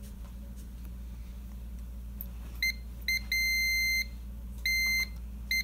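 Digital multimeter in continuity mode beeping in irregular bursts from about two and a half seconds in: two brief chirps, a longer steady tone, another long one, then a chirp, as the probe tips make and lose contact. The beep means the enameled-wire joint is conducting.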